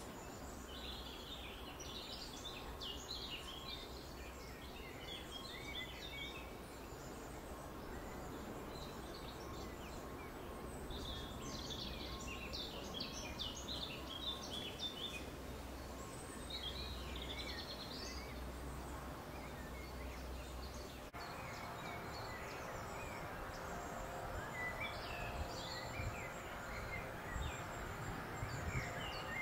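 Outdoor woodland ambience: songbirds sing in short bursts of high chirps every few seconds over a steady background hiss. The background changes and gets a little louder about two thirds of the way through.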